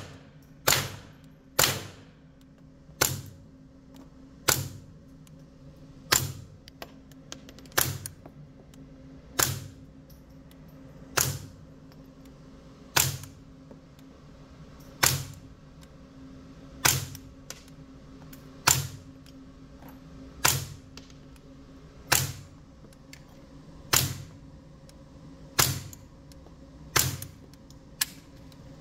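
Suppressed .22 LR HK416 rifle with a YHM Phantom 22 suppressor firing single shots at a slow, steady pace, about one every one and a half to two seconds, some seventeen shots in all. Each shot is a short sharp crack followed by a brief echo.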